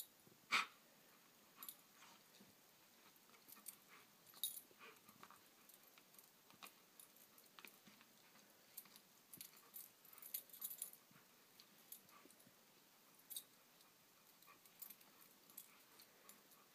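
Near silence broken by faint, scattered soft clicks and rustles of a Samoyed puppy pawing and mouthing a lattice treat ball on carpet, the clearest tap about half a second in.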